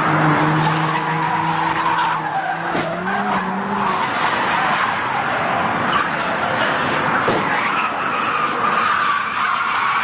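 Car tyres skidding on pavement, a continuous squeal over loud road noise. A low steady hum runs under it for about the first four seconds, then stops.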